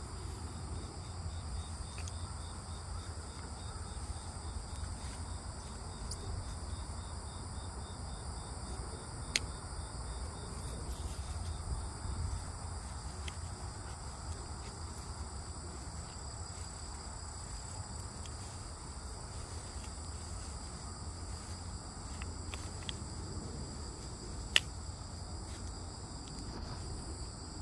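Steady chorus of insects, crickets or similar, trilling continuously at a high pitch. It plays over a low rumble and two sharp clicks, about a third of the way in and near the end.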